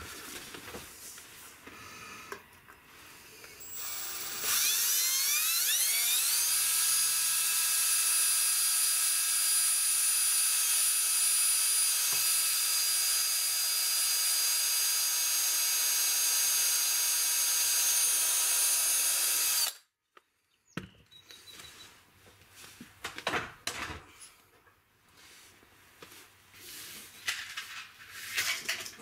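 Cordless drill boring a hole through aluminum. The motor whines up in pitch about four seconds in, then runs at a steady high pitch for about fifteen seconds and cuts off suddenly. Scattered light knocks follow.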